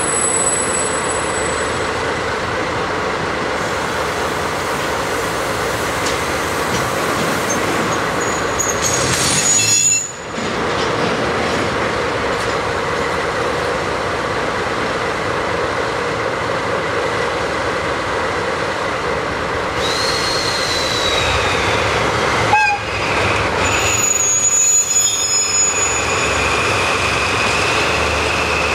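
A pair of coupled DD51 diesel-hydraulic locomotives, each with twin V12 diesel engines, running with a steady engine drone while shunting slowly through a freight yard. Brief high metallic squeals from the wheels come in the second half.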